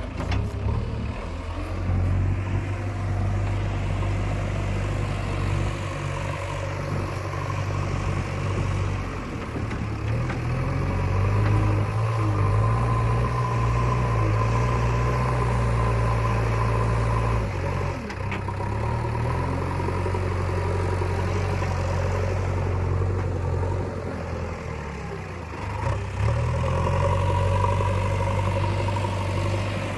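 JCB 3DX Eco Xcellence backhoe loader's diesel engine running while digging and levelling soil. Its pitch and level step up and down every few seconds as the load changes.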